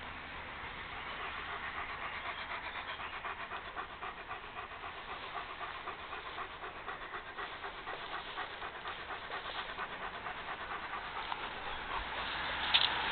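A dog panting in a quick, even rhythm, about three to four breaths a second.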